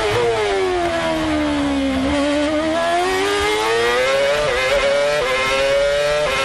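Red Bull RB8's 2.4-litre Renault V8 Formula One engine heard from the onboard camera. The engine note falls as the car slows through a slow corner in second gear, then climbs steadily under full throttle, with three quick upshifts in the last two seconds or so.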